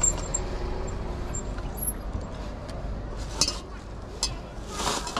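Bicycle rolling over brick paving with a steady low rumble and a few sharp clicks. Near the end a plastic-wrapped bundle rustles loudly as it is tossed into a plastic wheelie bin.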